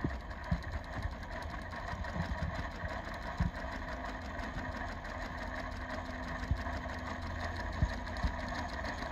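Industrial single-needle sewing machine running steadily with a fast, even run of needle strokes as it stitches fold-over elastic onto fabric through a binder attachment.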